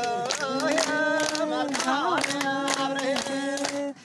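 A group of voices singing a slow, chant-like song together, holding long notes, over steady hand clapping; the sound breaks off abruptly just before the end.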